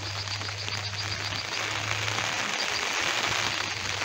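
Heavy rain falling steadily, a dense even hiss with a faint low steady hum beneath it.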